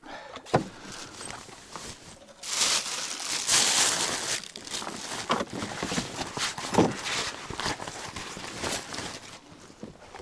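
A knife scraping scales off a fish: a rapid run of rough scrapes and small knocks, loudest in the middle, with a sharp knock about half a second in.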